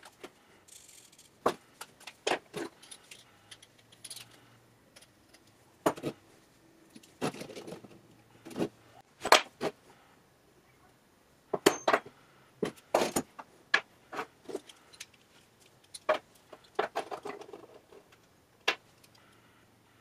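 Small metal parts (brass pipe fittings, a black iron pipe tee and steel digital calipers) being picked up and set down on a workbench. Sharp clicks and clinks of metal on the bench come at irregular intervals, some in quick clusters.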